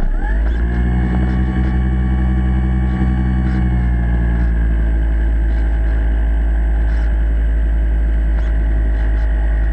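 A radio-controlled model boat's motor and propeller, heard underwater through the camera housing. It starts suddenly with a quick rise in pitch, then runs steadily with a deep rumble.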